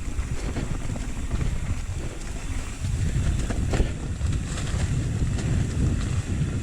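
Wind buffeting the microphone of a bike-mounted action camera, a low rumble with occasional knocks from the mountain bike riding over the trail. It gets louder about three seconds in.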